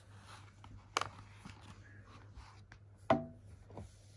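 Cardboard model box and its foam-and-plastic inner tray being handled and worked loose, with two knocks about two seconds apart, the second louder and hollower.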